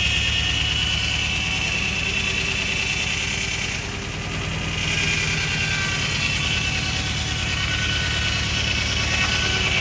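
An engine running steadily, with a fast, even beat of firing pulses and a high whine on top that fades briefly about four seconds in.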